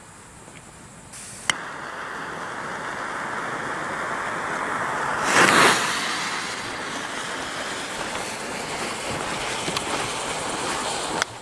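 A sharp click about one and a half seconds in, then a steady rough hiss as the fuse of a 63 mm firework cake is lit and burns, with a brief louder surge of sparking about five and a half seconds in. The hiss cuts off suddenly near the end.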